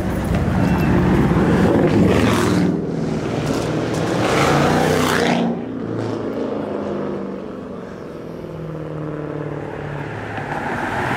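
Car engines accelerating past, with two loud swells in the first half, then a lower, steadier engine note from cars pulling out.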